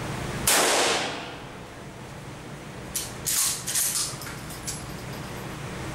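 A pump-action shotgun fires once about half a second in, the blast dying away over about a second. Around three seconds in come several sharp clacks as the pump slide is worked to chamber the next shell.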